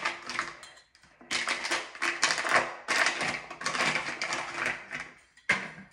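Chrome parts of a Delta shower trim kit rattling and clinking as they are handled, in several spells of clatter with short pauses between them.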